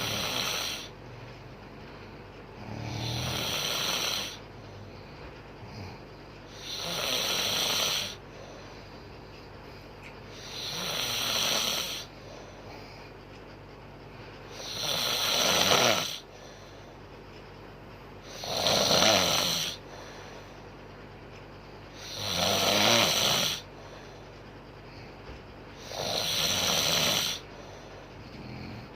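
A woman snoring in her sleep: a slow, even rhythm of snores, one about every four seconds, each lasting about a second and a half.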